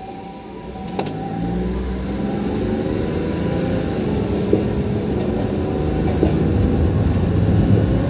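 A Toyama city streetcar passes close by, its motors humming and its wheels rumbling on the street track, growing louder as it nears. In the first second the two steady tones of an ambulance siren fade away.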